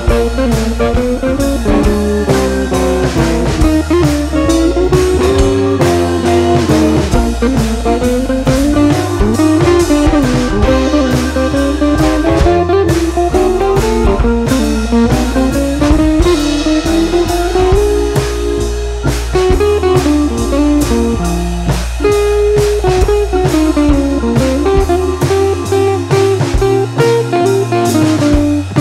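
Background music: a guitar-led blues-style track with a steady drum beat.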